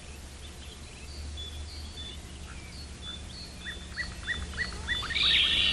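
Soft cartoon ambience of small birds chirping, with a quick run of short falling chirps in the second half. Near the end a steady high tone comes in and holds.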